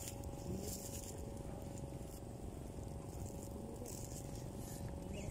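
Quiet outdoor background: a steady low rumble with a faint steady hum and a few faint rustles.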